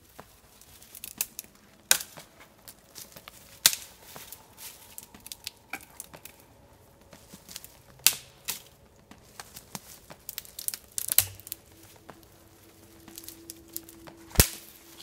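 Dry dead spruce twigs being snapped off by hand: an irregular run of sharp cracks and crackling, with the loudest snaps about two, three and a half, eight, eleven and fourteen seconds in.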